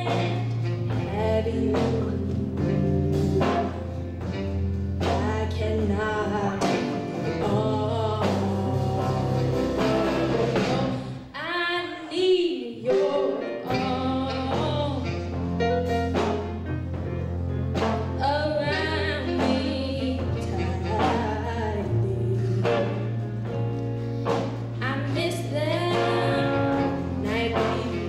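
Live blues band with a female lead singer, saxophone, electric guitar, bass guitar and drum kit playing a song. Near the middle the bass drops out for about two seconds, then the full band comes back in.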